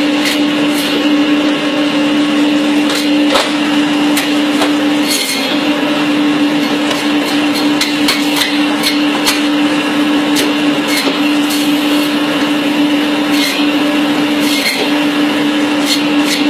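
Electric bone-cutting machine running steadily with a constant hum while cutting goat bone, with scattered sharp clicks and ticks as it cuts.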